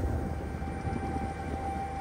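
Steady low rumble of a ferry's engines, with wind noise on the open deck. A faint steady whine joins in under a second in.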